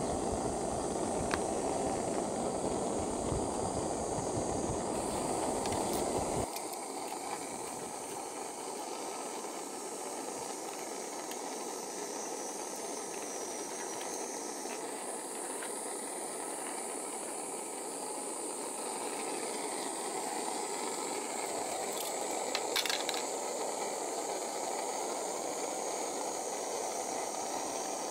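Steady hiss of a gas canister stove burner and water boiling in an aluminium Trangia mess tin as the pasta cooks. A heavier, fuller noise in the first few seconds cuts off abruptly. A couple of short clicks come about three-quarters of the way through.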